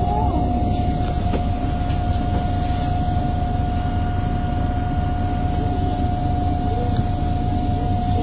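Inside a MAN 18.220 single-deck bus, its six-cylinder diesel idling with the bus at a standstill: a steady low rumble under a constant high whine.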